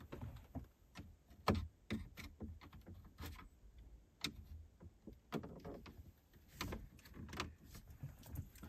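Plastic clicks, creaks and scrapes from a small flat screwdriver and a plastic pry tool levering at a Saab 9-3's dashboard vent trim panel as its retaining clips are worked loose. The loudest click comes about a second and a half in.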